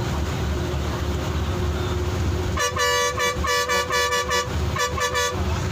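Bus engine and road rumble heard from inside the cab. A little over two seconds in, the bus horn sounds a string of short blasts for nearly three seconds, louder than the rumble.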